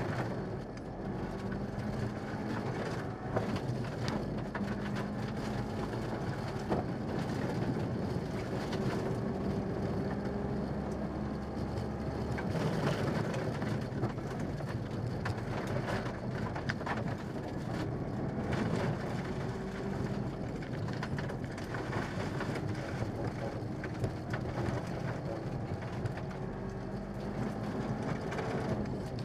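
Mitsubishi Lancer Evolution VI rally car's turbocharged four-cylinder engine driven hard through the gears, heard from inside the cabin, its pitch rising and dropping back at each gear change. Gravel spray and stones clatter against the underbody.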